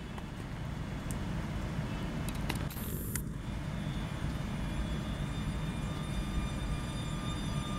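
Newag Griffin EU160 electric locomotive hauling a passenger train, pulling slowly away from the platform with a steady low rumble. A brief high hiss comes a few seconds in, and a faint steady whine joins about halfway.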